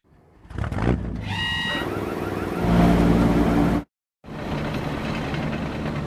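Cartoon vehicle sound effects: a combine harvester's engine builds up and runs, with a brief high tone about a second and a half in, and grows louder before cutting off suddenly near four seconds. After a short silence, a road roller's engine runs steadily.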